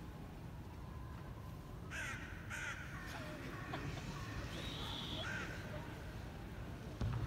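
Hushed stadium crowd murmuring while waiting on play, with two short calls about two seconds in and a brief high whistle near the middle.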